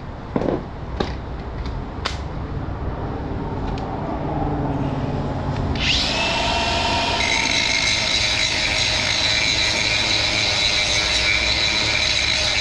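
A few sharp knocks of wood being handled, then about six seconds in a power tool starts and runs steadily with a high whine, working the timber pieces.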